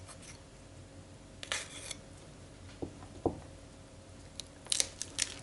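Kitchen knife cutting through a raw chicken's wing joint and skin on a cutting board: a few short scrapes and clicks, with two soft knocks about three seconds in.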